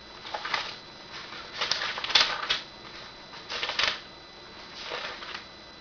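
Thin Bible pages being turned, rustling in several short bursts.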